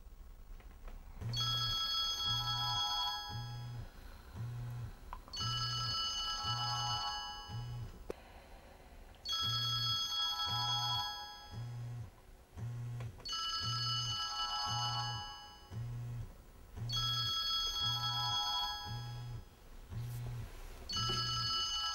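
Mobile phone ringtone playing: a short melodic phrase with a steady beat, starting about a second in and repeating about every four seconds, six times in all.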